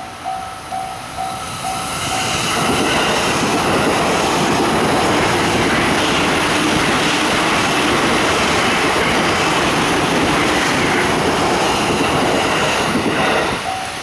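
Japanese level-crossing warning bell ringing in quick even pulses, drowned out about two and a half seconds in by a JR East E657 series electric express train passing at high speed. The train makes a loud, steady rush of wheels and wind for about eleven seconds and cuts off sharply near the end, when the bell is heard again.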